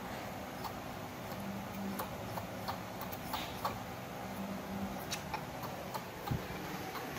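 Baby macaque sucking milk from a plastic bottle: soft, irregular clicking and ticking sounds of sucking at the teat, with a soft bump about six seconds in.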